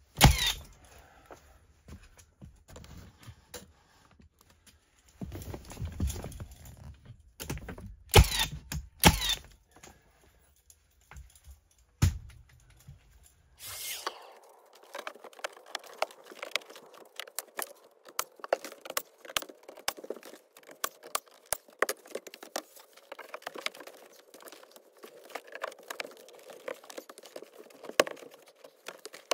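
Milwaukee M18 Fuel 15-gauge angled finish nailer firing into tongue-and-groove wall boards: several sharp, loud bangs a few seconds apart. About halfway through the sound changes abruptly to a dense stream of quick, light clicks and ticks.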